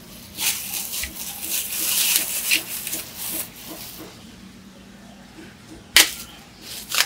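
Bubble-wrap plastic packaging crinkling and rustling as it is handled for a few seconds, then two sharp crackles about a second apart near the end.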